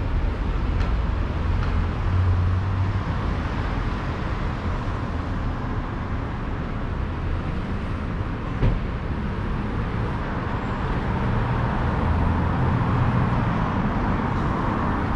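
City street traffic: cars driving past with a steady mix of engine hum and tyre noise, which swells near the end as a vehicle comes closer. A single sharp knock comes a little over halfway through.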